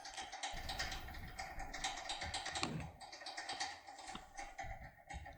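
Quiet, rapid clicking and scratching of a tin-foil-wrapped Heracles Y8 impression lock pick being slid slowly into a lock's keyway. A faint steady hum runs underneath.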